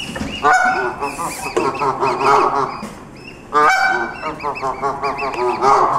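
Adult Canada geese honking: a loud honk about half a second in and another at about three and a half seconds, with a run of short, quick calls between and after them.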